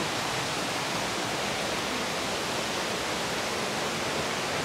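Steady rush of a forest waterfall and the stream below it, an even hiss of falling and flowing water.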